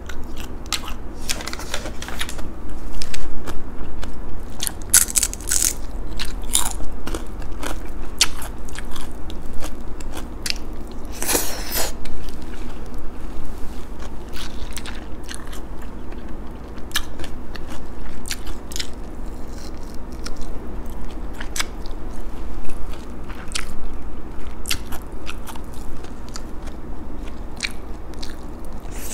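Close-miked eating: a person chewing and crunching a meal of rice, crisp fried danggit (dried fish) and beef tapa eaten by hand, with many small irregular clicks and a few louder crunchy rustles.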